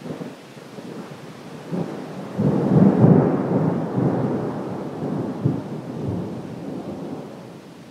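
Thunder rumbling: it swells over the first few seconds to its loudest about three seconds in, then rolls away slowly.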